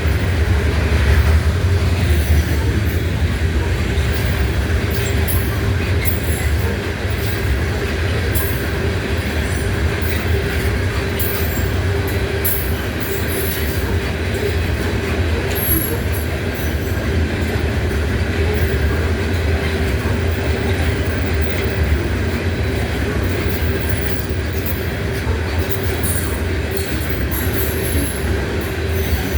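Freight train cars rolling past at speed: a steady low rumble of wheels on rail, with scattered short high-pitched wheel squeals and clicks.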